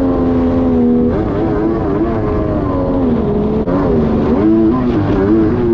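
Kawasaki 1100 two-stroke triple jet ski engine running hard, steady for about a second and then dropping and climbing in pitch again and again as the throttle is worked.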